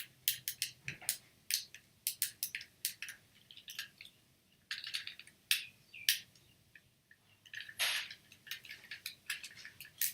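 Plastic fidget cube being fiddled with: a run of sharp, uneven clicks, a few a second.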